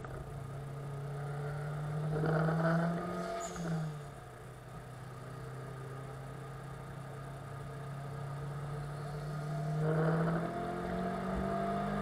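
Turbocharged Ford Fiesta ST150's 2.0-litre four-cylinder engine heard from inside the cabin under acceleration. The note climbs, drops sharply about three and a half seconds in, runs steady, then climbs again from about ten seconds.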